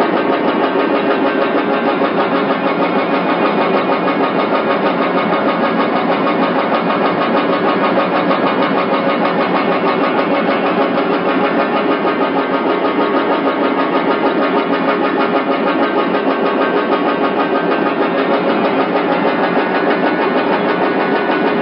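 Cavendish upright piano on a key-testing machine (a "piano crusher"), its blue levers striking the keys over and over in rapid succession so that many notes sound at once in a loud, unbroken din. This is the factory endurance test in which each note is played 324,000 times.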